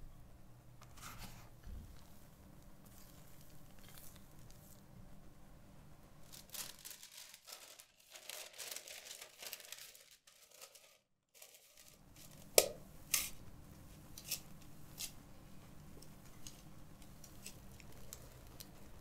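Parchment paper crinkling and rustling as it is fitted into a round metal cake tin, followed by a few sharp clicks and taps, two of them louder than the rest.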